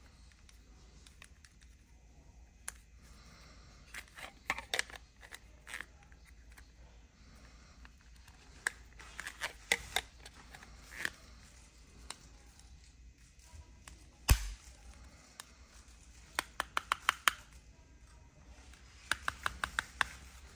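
Hard plastic phone case and belt-clip holster being handled: clicks, snaps and scrapes as the shelled Galaxy Z Flip 4 is pushed into and worked out of the holster, in short runs of rapid clicks, with one sharp knock a little past the middle.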